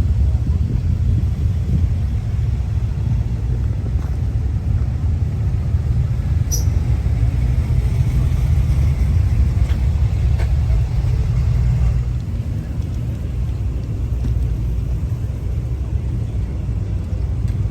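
A car on the move: a steady low rumble of engine and road noise that eases a little about twelve seconds in.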